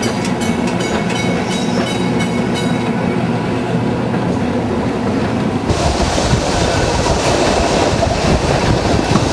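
A heritage electric tram running along its track, heard from on board: steady humming tones with the wheels clicking over the rails. About five and a half seconds in, the sound switches abruptly to a louder, rushing rumble.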